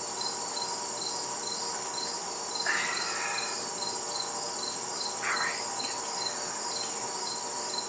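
Steady, pulsing chorus of crickets chirping at night, with two brief rustles from safety goggles being handled, about three and five seconds in.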